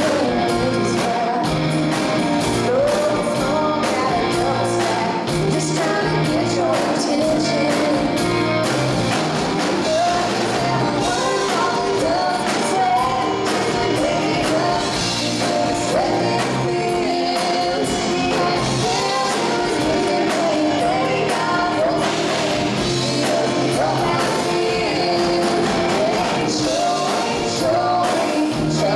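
Live band performing a song: two women singing lead and harmony into microphones over acoustic guitar, electric guitar and a drum kit.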